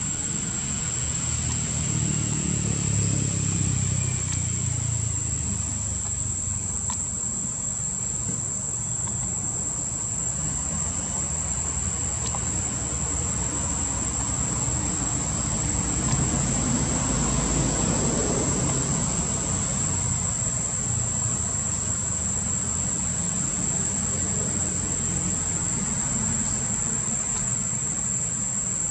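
Outdoor ambience: a steady, high-pitched insect drone over a low rumble that swells twice, once a few seconds in and again around the middle.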